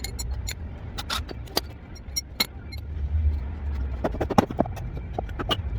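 Scattered metallic clicks and knocks of tools and engine parts being handled while a V6 engine is stripped down, coming thicker and louder near the end, over a steady low rumble.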